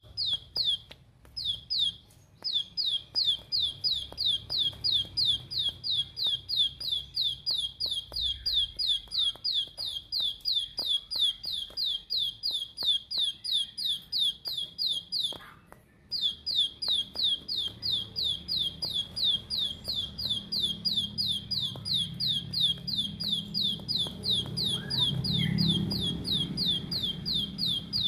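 Plain prinia (ciblek sawah) calling in its rapid 'tembakan' style: a long run of sharp, high, downward-sliding notes repeated about three or four times a second, with a brief break a little past halfway.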